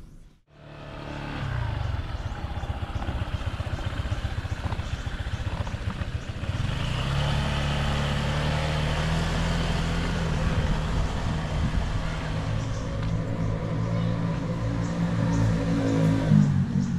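Honda ADV150 scooter's single-cylinder engine running while riding, with wind noise over it. The engine note rises and grows louder about six seconds in as the bike speeds up.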